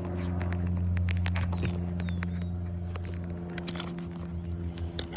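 A steady low mechanical hum from a running motor, turning uneven and pulsing near the end, with scattered light clicks and taps of tools being handled.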